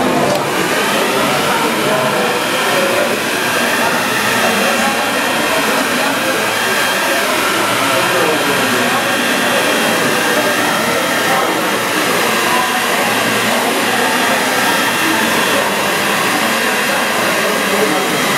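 Hand-held hair dryer running steadily: an even rush of air with a thin motor whine, blown over a wet watercolour painting to dry the paint.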